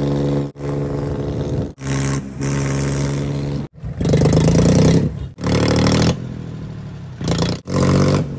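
Tractor's diesel engine running with its silencer removed, giving a loud open-exhaust note. It comes in short stretches that start and stop abruptly.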